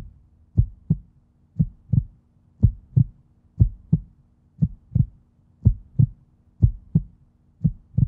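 Heartbeat sound effect: paired low thumps, lub-dub, about once a second, over a faint steady hum.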